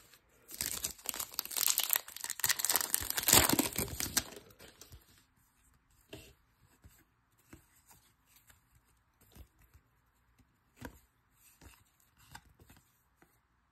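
A trading-card pack's foil wrapper being torn open and crinkled for about four seconds. It is followed by faint, scattered clicks of cards being slid and flipped through in the hand.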